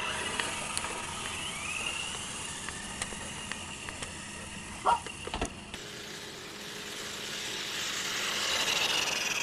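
Electric motors of radio-controlled toy cars whining as they race off, growing louder near the end.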